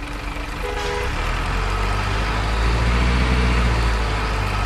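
Soil-loaded remote-control dump truck driving through shallow muddy water: its small electric drive running and its wheels splashing through the water, with a low rumble that grows louder toward the middle.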